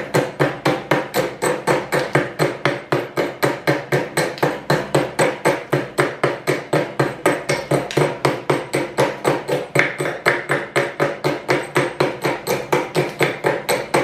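Rapid, even light taps of a flat steel tool against a saw-cut brick, about five a second, knocking out the thin slices of brick left between the saw cuts.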